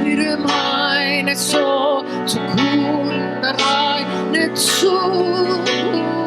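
Worship music: a voice singing with vibrato over guitar and sustained instrumental tones.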